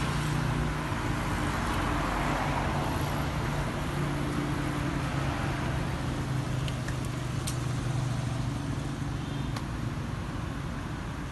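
Steady low engine hum with street traffic noise, and a few faint clicks in the second half.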